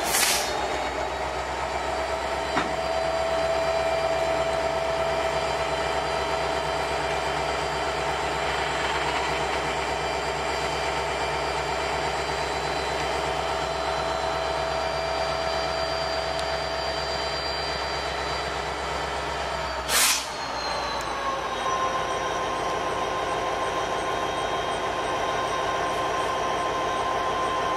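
Flatcars of a slow maintenance-of-way freight train rolling past on steel wheels, with several steady high-pitched tones of wheel squeal over the rolling noise. A sharp bang at the very start and another about twenty seconds in.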